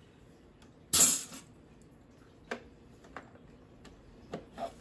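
SodaStream sparkling water maker letting out one short, loud blast of CO2 hiss about a second in, as the bottle is carbonated. A few sharp clicks and knocks of the bottle and machine being handled follow near the end.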